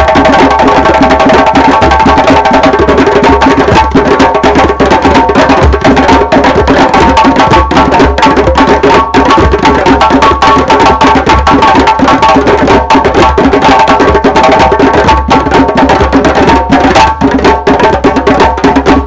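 Several djembes played together by hand in a dense, loud, continuous rhythm, a fast stream of slaps and tones on the goatskin heads.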